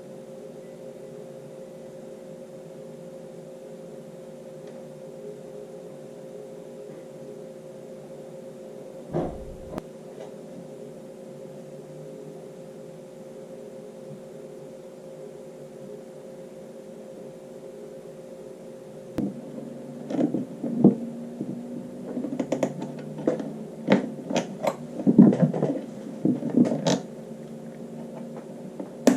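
Chinese diesel heater running with a steady hum. From about two-thirds through, a run of knocks and clatters from handling.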